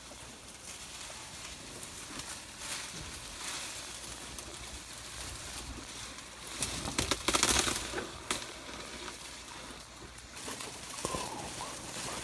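African elephant moving through dry bush close by: rustling and crackling of branches and leaves, with a loud burst of crackling about seven seconds in.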